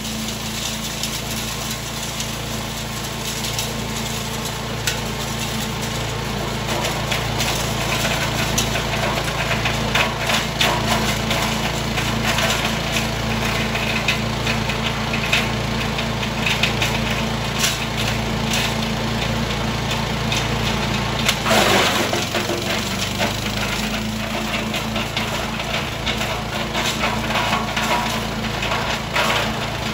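The 11-horsepower engine of a Zenoah SR110-1 self-propelled chipper-shredder running steadily, with irregular clicking and clattering from the machine over it. The engine note dips briefly about two-thirds of the way through.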